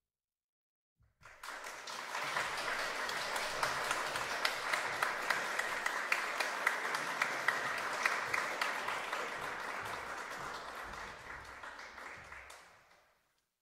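Audience applauding: after about a second of silence the clapping starts, quickly builds to a full, steady applause with some sharp individual claps, then dies away near the end.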